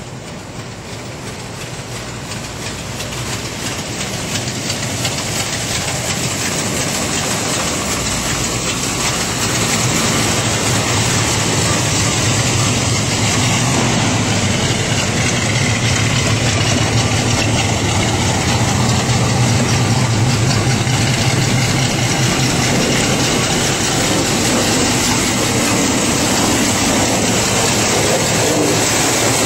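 1970 Chevy pickup's engine idling steadily, growing louder over the first ten seconds or so and then holding level.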